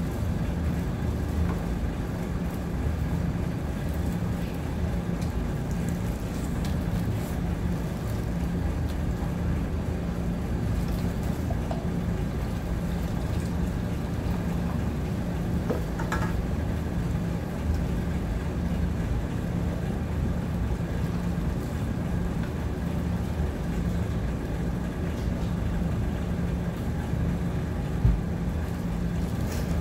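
A steady low hum runs throughout, with faint clicks and rustling of hands handling food. There is a single short thump near the end.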